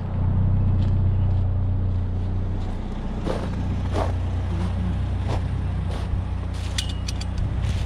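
GMC Sonoma pickup's engine running steadily, with a handful of short knocks and clicks over it in the second half.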